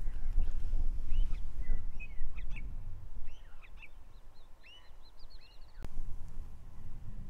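Wind rumbling on the microphone, easing off in the middle, while a small bird gives a run of short, quick chirps. One sharp click sounds near the end.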